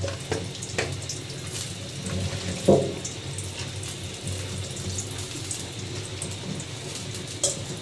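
Water running and splashing steadily, with a few clinks and knocks of kitchen utensils, the loudest about three seconds in.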